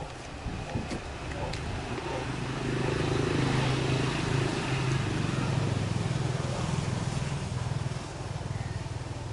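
Engine of a passing motor vehicle, a low hum that grows louder over a few seconds and then fades.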